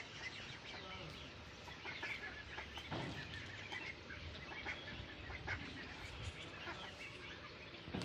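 A flock of domestic ducks, white Pekins and young brown ducklings, calling with many short scattered peeps and chirps. There is a dull knock about three seconds in.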